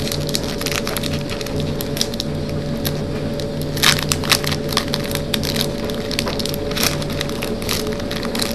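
A trading-card booster pack wrapper being torn open and crinkled: scattered sharp crackles, thickest around the middle and again near the end, over a steady low background hum.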